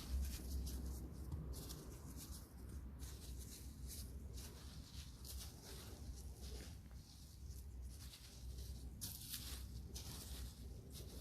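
Irregular scratching and rustling strokes, several a second, over a steady low rumble.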